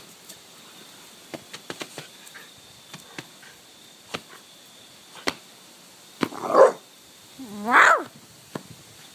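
Puppy barking twice, about a second apart, the second bark sliding up in pitch, after several seconds of small clicks and taps.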